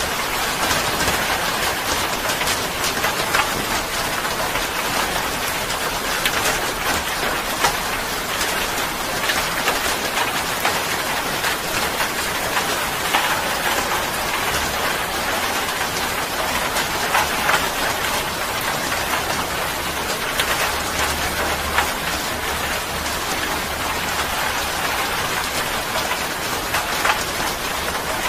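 Steady rain: an even hiss with many separate drop impacts.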